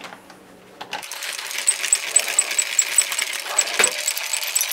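Rotary cheese grater shredding a block of Colby Jack cheese: a steady rasping that starts about a second in, with a regular high tick about four or five times a second.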